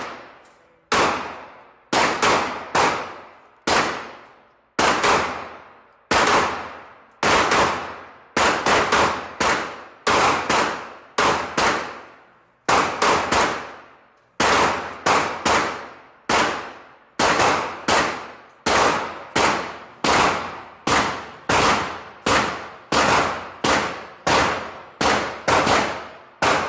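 Gunshots fired in a long, uneven series, over thirty in all, mostly one every half second to a second with some quick pairs, each shot echoing and dying away before the next.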